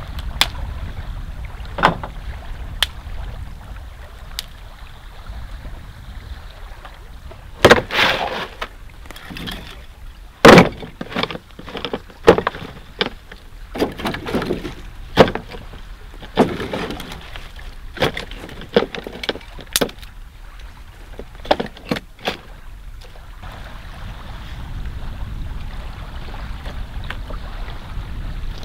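Wind rumbling on the microphone, with a run of irregular sharp cracks and crunches through the middle, about one or two a second, that fade out again near the end.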